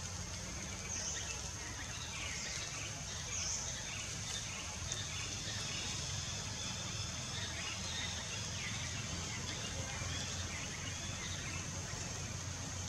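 Outdoor woodland ambience: a steady high-pitched insect drone, swelling briefly a few times in the first four seconds, with scattered short chirps and a low rumble beneath.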